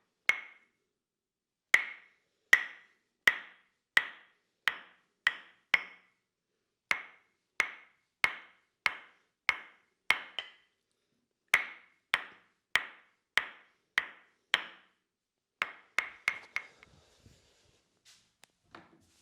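Tok-sen wooden mallet tapping a wooden wedge in single sharp knocks, each ringing briefly, about one and a half a second, in runs broken by short pauses. About sixteen seconds in there is a quicker flurry of taps, followed by faint rustling.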